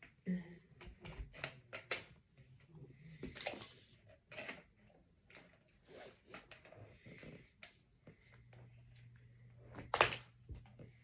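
Handling noise from a gaming headset and its cord: scattered rustles, clicks and light knocks, with one louder knock about ten seconds in.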